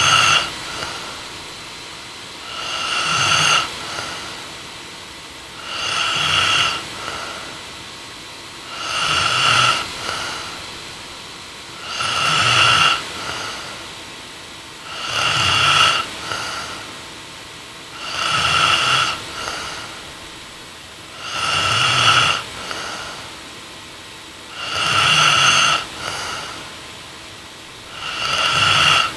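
A young woman snoring in her sleep with a steady rhythm, one snore about every three seconds. Each snore swells for about a second and then cuts off sharply.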